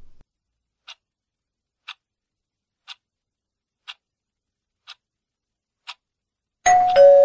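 Quiz countdown timer sound effect: a clock ticking once a second, six ticks, then a short two-note tone, high then lower, as the countdown runs out.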